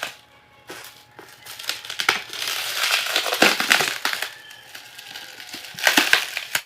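Packaging being handled during an unboxing: the wrapping crinkles and rustles, quiet at first, then a long dense stretch of crackling in the middle and a short burst near the end.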